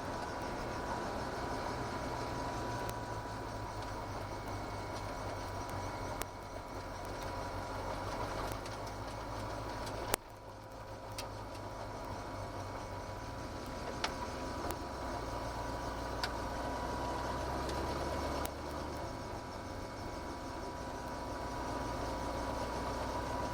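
Ford GT40's V8 engine running at low, fairly steady revs, with a few short sharp clicks over it, the loudest about ten seconds in.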